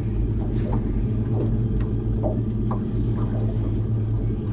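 Boat motor running steadily at an even pitch, with a few faint short ticks and chirps over it.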